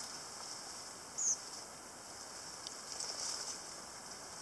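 Faint scuffing and rustling of a rain suit and rubber boots climbing over rocks, over a steady high hiss, with one short high squeak about a second in.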